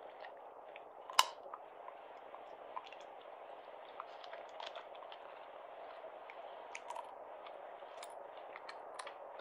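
Quiet, close small clicks and taps over a steady hiss, with one sharper click about a second in.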